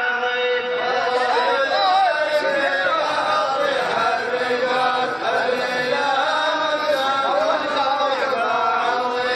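A man chanting a sung Arabic praise poem in a long, winding melodic line over a steady held drone.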